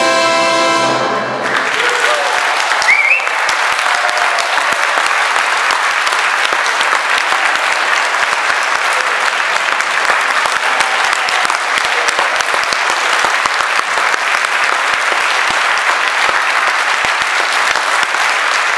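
An orchestra's final held chord cuts off about a second in, and the audience breaks into steady applause. A short rising whistle cuts through the clapping soon after.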